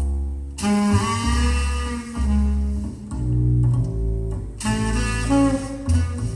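Recorded music played back through a KEF LS50 Meta bookshelf speaker and picked up in the room by a phone's microphone: a slow piece with deep, sustained bass notes under changing melody notes.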